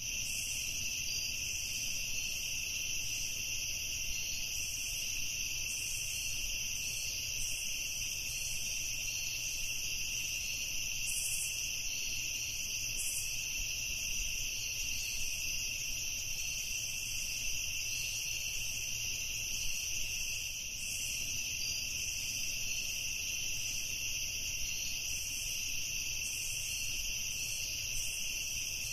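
Steady chorus of night insects: a continuous high-pitched drone that never breaks.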